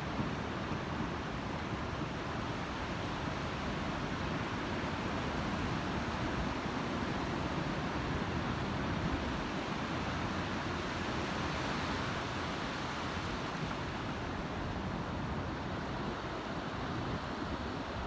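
Sea surf washing onto a sandy beach, a steady rushing wash that swells a little in the middle.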